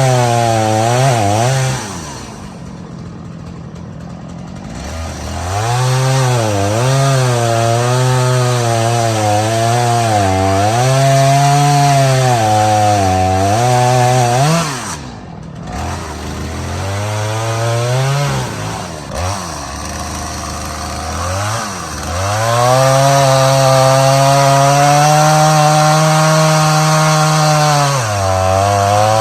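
Stihl MS 250 two-stroke chainsaw cutting through a dead tree while felling it, revving hard under load. It drops back toward idle about two seconds in and again around halfway, then runs at high, steady throttle through the final cut before easing off at the very end.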